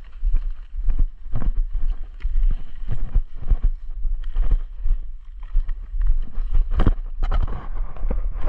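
Footsteps of an airsoft player moving across the field, with gear rustling and handling noise on a body-worn camera and a steady low rumble of wind on the microphone.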